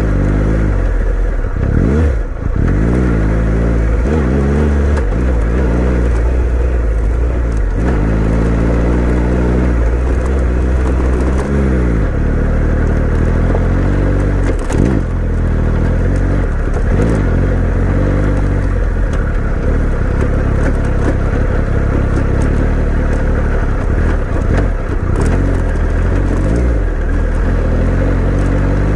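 Adventure motorcycle engine on an off-road trail ride. The revs climb and drop again and again with throttle and gear changes, over a steady low rumble, with a few sharp knocks, the clearest about fifteen seconds in.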